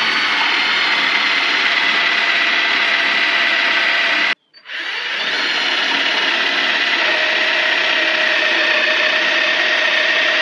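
Cordless drill running steadily as it bores anchor-bolt holes down into a concrete block foundation. It stops briefly about four seconds in, then starts again and runs on at the same steady speed.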